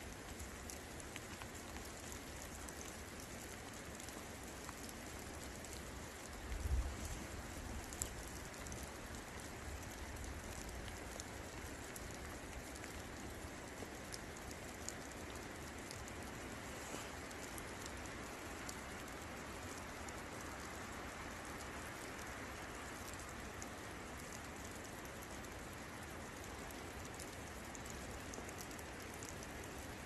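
Steady rain falling, a continuous hiss with scattered sharp drip ticks. There is a brief low rumble about six to seven seconds in.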